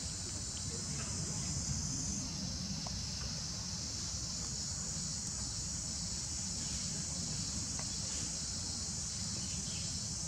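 Steady high-pitched drone of an insect chorus, over a low steady rumble.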